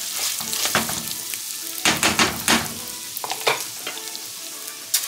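Raw white rice and garlic sizzling in hot oil in a metal pot, with a spoon scraping and stirring through the grains in several strokes. The rice is being toasted before the water goes in.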